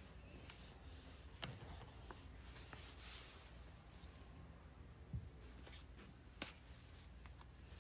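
Quiet paper-craft sounds: a soft swishing rub of paper about three seconds in, and a few scattered light taps and clicks.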